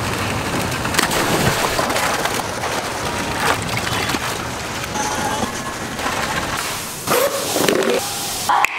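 Steady rushing and splashing of swimming-pool water, with a few brief knocks near the end.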